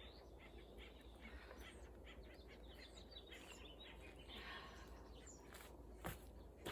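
Faint outdoor ambience with small birds chirping repeatedly, and a single soft knock near the end.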